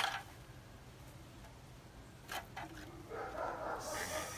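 A sharp click right at the start, then a couple of light taps. About three seconds in, a six-week-old Labrador puppy makes soft vocal sounds.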